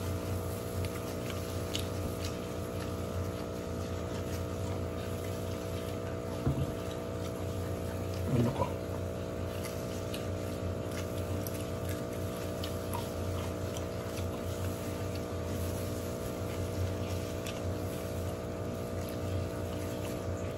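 A steady mechanical hum made of several even tones, with faint clicks and rustling from gloved hands picking at rice. There are two brief louder sounds, about six and eight seconds in.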